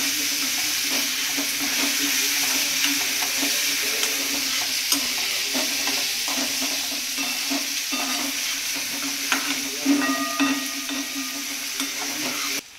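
Chopped onion, peanuts, green chilies and curry leaves sizzling in hot oil in a small nonstick kadai, with a steel spoon stirring and clicking against the pan. The onion is being browned to a light golden colour. The sound drops away abruptly near the end.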